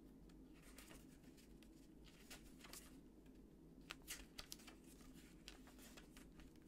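Near silence with low room tone and a scatter of faint short clicks and rustles from a small paperback book's pages being handled.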